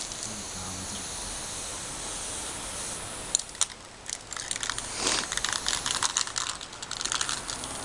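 Chalk scratching and tapping on asphalt as letters are drawn: a few sharp clicks about three seconds in, then a dense run of scratchy strokes. Under it all is a steady hiss.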